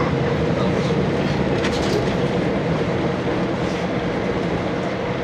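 Interior running noise of a KiHa 40 diesel railcar, heard from inside the car: steady diesel engine and wheel-on-rail rumble, with a short run of wheel clicks over rail joints about two seconds in.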